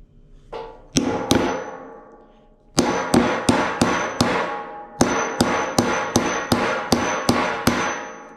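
Repeated blows of a small steel crowbar against a nailed wooden crate, each with a brief metallic ring. They come in three runs of quick strikes, about three a second, as the lid is bashed at to pry it open.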